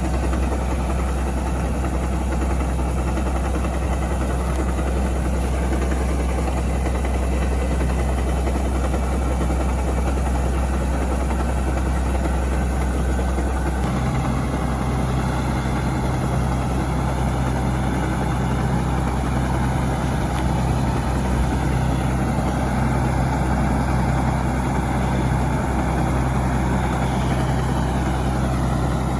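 A heavy engine running steadily, its low hum stepping up to a higher note about fourteen seconds in.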